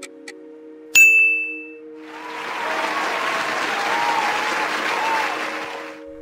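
A quiz sound effect: one bright ding about a second in, marking the reveal of the correct answer. It is followed by about four seconds of recorded crowd applause.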